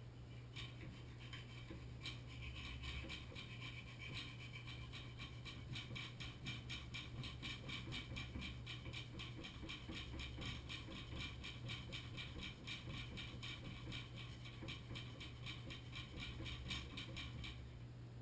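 Hand tool rasping against metal inside a Moen Posi-Temp shower valve body in rapid, even strokes, working on the stuck cartridge's outer shell that has to be cut out. It starts about half a second in and stops shortly before the end.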